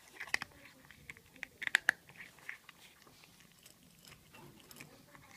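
Cat crunching dry kibble: a run of irregular sharp crunches, loudest about two seconds in.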